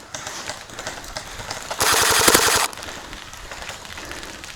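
Electric gel blaster, a Jinming Gen 10 ACR, firing one rapid full-auto burst of just under a second about two seconds in.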